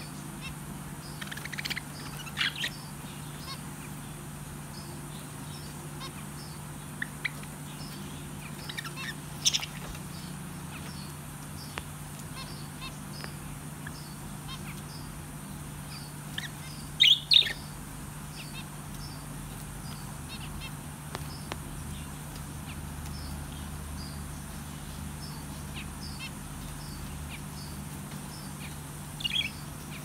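Caged albino Java sparrows and finches giving short high chirps and calls at irregular intervals, loudest in brief clusters about 9 and 17 seconds in, over a faint run of high pips and a steady low hum.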